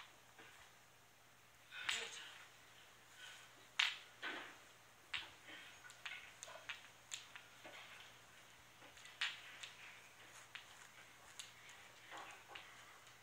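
Pembroke Welsh Corgi puppy chewing and pawing a plush toy on a hardwood floor: scattered small clicks and scuffs of teeth and claws, a few louder ones about 2 and 4 seconds in.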